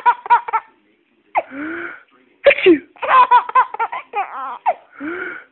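A pretend sneeze game: a drawn-out breathy 'ah…' build-up ends in a sharp 'choo' about two and a half seconds in, answered by a run of high-pitched giggling laughter from a small child. A new 'ah…' build-up starts near the end.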